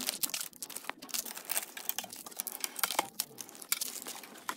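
Rustling, crinkling and many light clicks of hands handling a new hybrid battery pack and its cardboard packaging.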